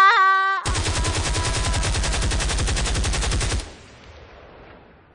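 A drawn-out vocal wail ends about half a second in. It is followed by about three seconds of rapid automatic gunfire, an evenly spaced burst that cuts off abruptly and fades away with an echo.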